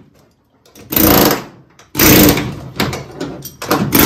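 Pneumatic air hammer with a chisel bit, worked in three short bursts about a second apart, chiselling between the sheet-steel floor pan and rocker panel flange to pop the spot welds loose.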